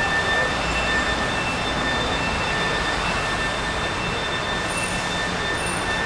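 Steady rushing background noise with faint, thin high-pitched tones that come and go.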